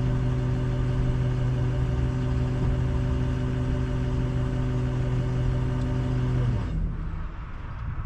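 Engine idling steadily, then switched off about two-thirds of the way through, leaving only a quieter low rumble.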